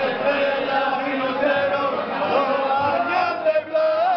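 Men singing a jota, a traditional Aragonese folk song, with several voices and long held, ornamented notes; one note is held near the end.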